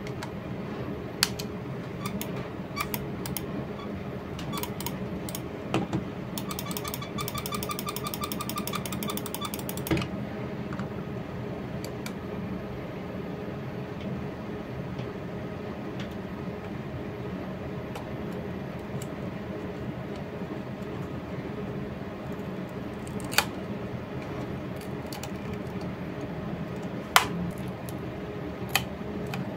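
Attack Shark X6 gaming mouse being handled, its plastic shell creaking and clicking in scattered sharp clicks, with a run of rapid, even ticking for about three seconds near the start, over a steady low hum.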